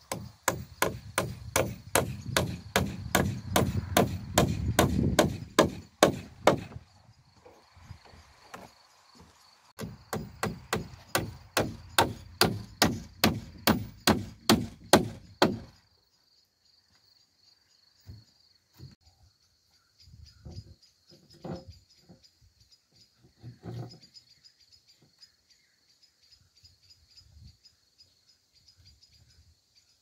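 Claw hammer driving nails into a timber stud wall frame: two runs of quick, even blows, about three a second, each lasting some six seconds with a short pause between. After that only a few scattered light knocks are heard over crickets chirping steadily.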